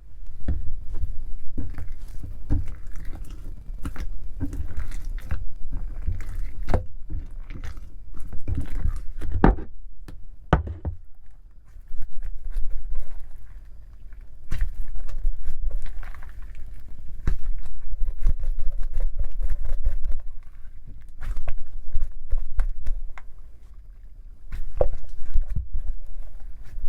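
Clear homemade water slime being worked by hand, giving irregular wet squishes and sticky clicks over a low handling rumble.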